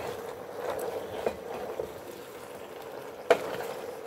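Pork and bok choy stir-fry sizzling in a metal pot while being stirred with a wooden spoon, with a few sharp knocks of the spoon against the pot, the loudest a little after three seconds in.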